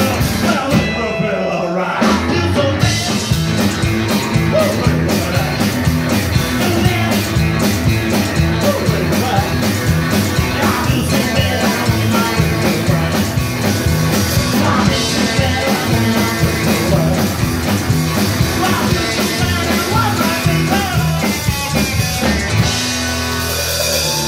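Live rockabilly band playing an up-tempo number with drum kit, electric guitar and bass, the drums keeping a fast, even beat. Near the end the drumming stops and a low chord rings on.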